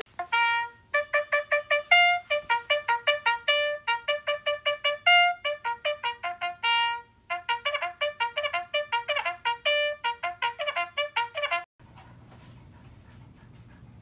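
Background music: a quick brass melody of short, separate notes that cuts off suddenly near the end, leaving only faint room sound.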